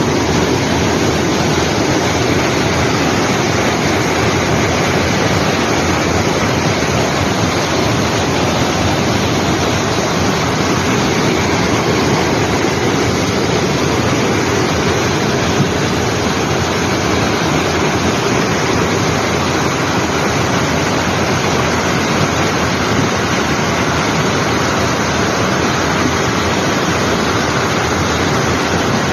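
Steady, loud rush of fast-flowing floodwater, the swollen water pouring over rocks.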